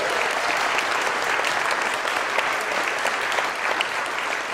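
Audience applauding: a dense patter of many hands clapping that starts to die away near the end.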